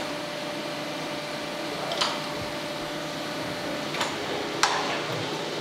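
Thompson surface grinder running, its wheel spinning and its table traversing, with a steady hum and a few sharp clicks about two and four seconds in. The wheel is not yet cutting; it is about to be touched off on the cast-iron straight edge.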